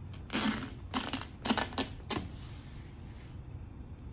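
Masking tape being peeled off a plastic bottle wrapped in duct tape. It comes away in a few short, sharp pulls over the first two seconds, then a longer, softer peel.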